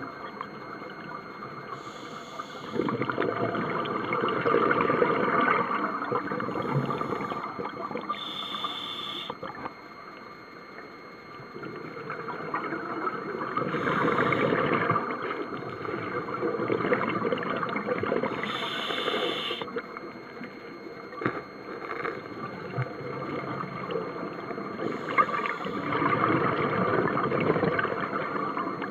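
A scuba diver's regulator breathing underwater, heard through the camera housing: slow repeating breaths, each with a rush of exhaled bubbles, roughly every five seconds, with short hisses between them.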